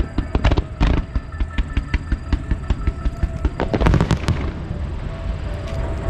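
Aerial fireworks bursting in a rapid run of bangs and crackles, thickest about four seconds in, with music playing under them.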